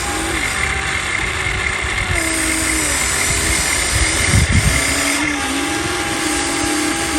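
Huina RC excavator's electric motors and gearboxes running with a steady whine that dips and rises in pitch as the machine works, and a brief low rumble about four seconds in.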